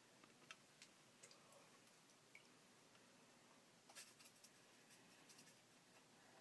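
Near silence, with faint scattered taps and light scratches of a watercolor brush working on paper, a small cluster of them about four seconds in.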